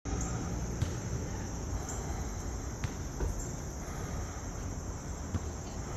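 Steady, high-pitched drone of insects such as crickets over a low rumble, with a few faint knocks.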